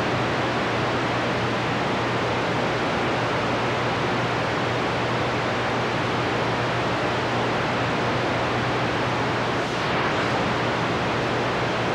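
CB radio receiver hissing with steady static from its speaker: an open channel with no station getting through, only band noise between transmissions. A low steady hum runs underneath.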